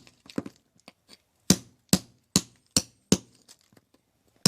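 Rapid sharp strikes of a mason's hand tool cutting at hard material: a few light taps, then five heavy blows a little under half a second apart, a pause of about a second, and one more blow at the end.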